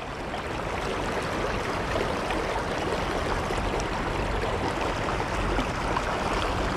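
Creek water flowing steadily: an even, continuous rushing with no breaks.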